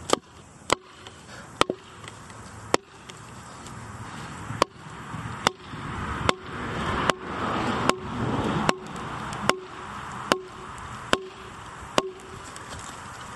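A wooden mallet strikes a steel splitting blade driven into the end grain of a sassafras log, about fifteen sharp knocks. The first few come irregularly, then they settle into a steady beat a little under one a second, each followed by a brief ring.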